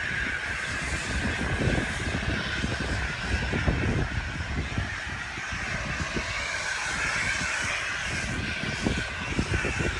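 Petrol pressure washer running steadily: an engine drone under a continuous hiss.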